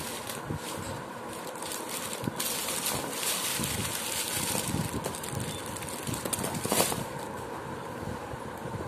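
Twist-wrapped Cadbury Eclairs toffees crinkling and rustling in their plastic-foil wrappers as hands scoop up a heap of them and let them drop onto a table, with a louder crinkle about seven seconds in.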